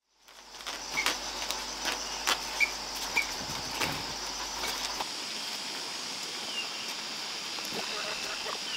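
Outdoor ambience: a steady high-pitched insect drone with a few short high chirps and scattered light knocks and clicks.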